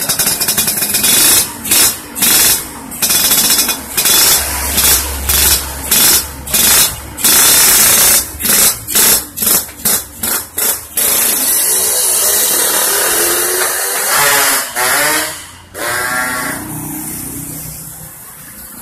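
Yamaha RX-King's two-stroke single-cylinder engine revved in quick throttle blips through an aftermarket underbelly ('kolong') expansion-chamber exhaust: a dozen or more sharp bursts with brief drops between. About eleven seconds in it pulls away, the pitch rising as it accelerates, then fading as it rides off.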